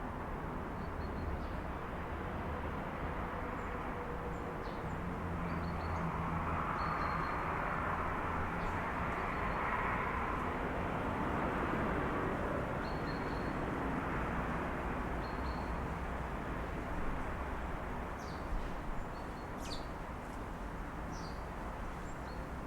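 City street ambience heard through an open apartment window: a steady traffic hum that swells in the middle and eases off again, with faint short bird chirps throughout and a few small clicks near the end.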